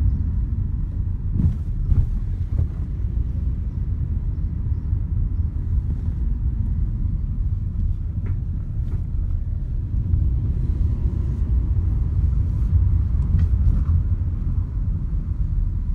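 Steady low rumble of a car driving, with engine and road noise heard from inside the cabin and a few faint clicks.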